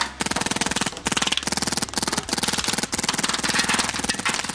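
Electronic paintball markers firing in rapid, machine-gun-like strings of shots, with short breaks between strings.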